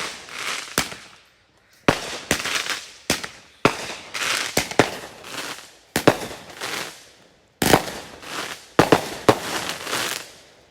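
Consumer fireworks going off: a string of sharp bangs, roughly one a second, each trailing off in crackle. The bangs stop shortly before the end.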